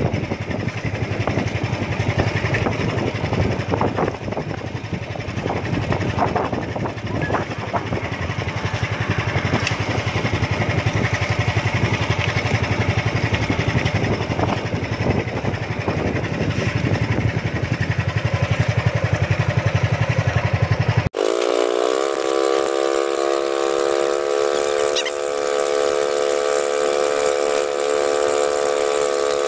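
A small engine running steadily with scattered clicks and knocks. About two-thirds of the way through it cuts off abruptly, and a steady drone of several held pitches takes over.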